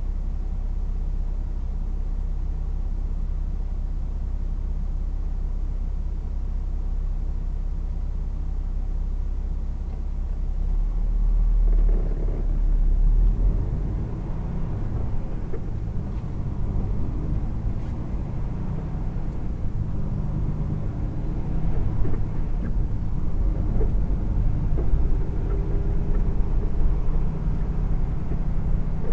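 Vehicle engine idling, heard from inside the cab, then pulling away about ten seconds in, with engine and road noise growing louder and more uneven as it gets under way.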